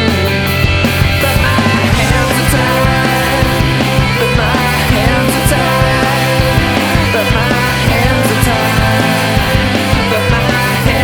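Loud rock music playing an instrumental passage with a steady drum beat and no singing.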